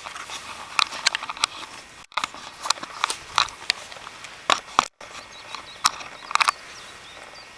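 Handling noise from a handheld camera: irregular sharp clicks and taps as it is moved, broken by two brief dropouts to silence where the recording is cut.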